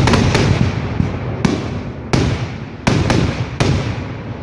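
Consumer fireworks going off: about seven sharp bangs and pops at uneven intervals over a continuous crackling hiss, which dies down near the end.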